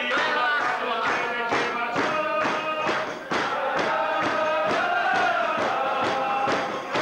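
A group of people singing a song together in unison, with steady rhythmic hand-clapping at about two and a half claps a second.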